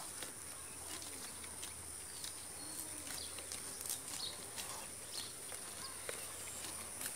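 Quiet rural outdoor ambience: a steady high-pitched insect drone, with a few faint bird chirps and scattered small clicks.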